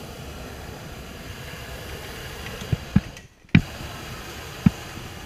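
A hot-air balloon's cold-inflation fan is running steadily, blowing air into the envelope and making a constant rushing noise with a low rumble. A few sharp knocks come around three and four and a half seconds in, and the sound cuts out for a moment about three seconds in.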